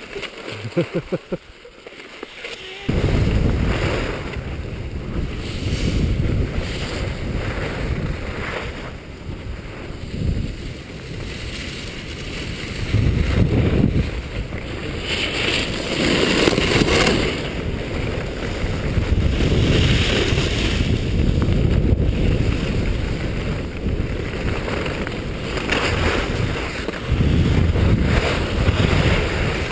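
Wind blasting the microphone of a point-of-view camera on a skier going downhill, starting suddenly about three seconds in, with skis scraping and hissing over packed snow in the turns.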